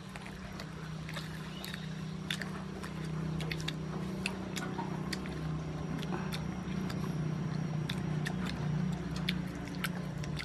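Chewing and crunching on roasted tarantula, with many short sharp clicks scattered throughout, over a steady low drone.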